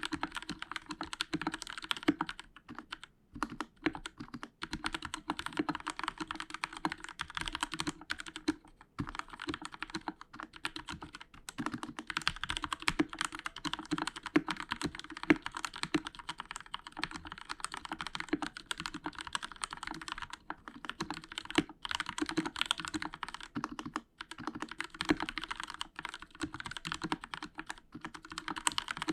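Continuous fast typing on a Royal Kludge RK61 60% mechanical keyboard with linear Outemu Red switches: a dense run of quick key clacks with a few brief pauses. The board has foam under the PCB and Krytox 206-lubed stabilizers.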